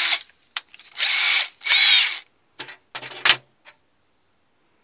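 Electric drill blipped twice in short bursts, its motor whine rising and falling each time, followed by a few light knocks and clicks.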